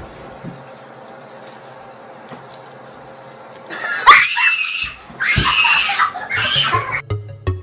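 Quiet room tone for the first half, then several loud, high-pitched vocal squeals or shrieks in quick succession. Electronic music with a steady beat comes in near the end.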